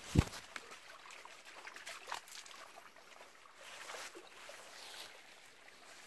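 A single sharp thump just after the start, then faint trickling of shallow water in a concrete channel with scattered small crackles.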